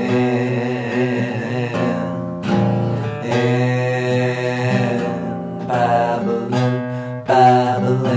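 A song with guitar and a voice holding long, wavering sung notes.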